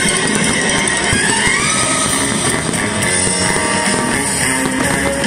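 Rock music with guitar, playing steadily at full volume, with a rising guitar bend about a second in.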